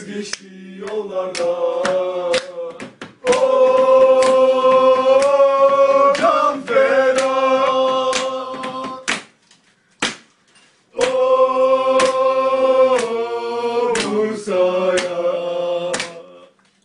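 A group of voices singing a Bursaspor terrace chant without clear words, holding two long notes of about six and five seconds with a short break between them. Sharp beats come in between the sung notes.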